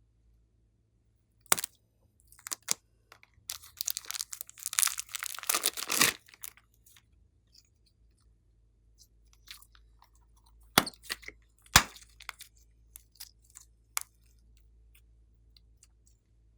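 Glossy slime being worked by hand, giving sharp wet clicks and pops, with a dense run of crackling about four to six seconds in.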